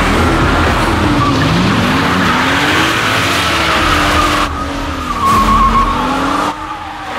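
BMW M235i's turbocharged straight-six engine running hard, its pitch rising and falling as it revs through corners, with tyres squealing. The sound jumps abruptly a few times, about four and a half and six and a half seconds in.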